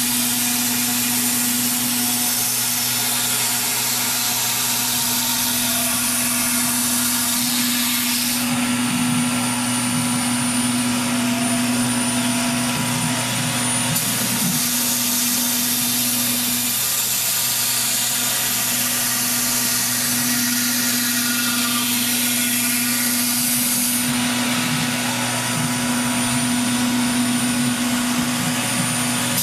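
CNC router running steadily while it cuts wing parts: a loud hiss with a steady hum under it, and the high-pitched cutting noise shifts several times.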